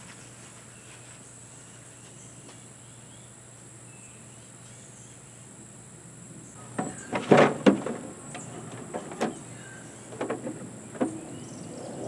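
A steady high insect trill runs throughout. About seven seconds in comes a cluster of sharp clicks and knocks from a socket wrench and sockets being handled, loudest at the start, with a few scattered ones after.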